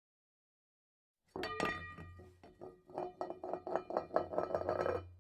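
Rapid clinking of something hard against glass or metal, about five to six strikes a second, each ringing briefly. It starts suddenly about a second in, over a low electrical hum.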